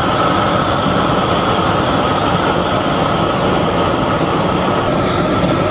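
A loud, steady mechanical rumble with a constant high whine running through it.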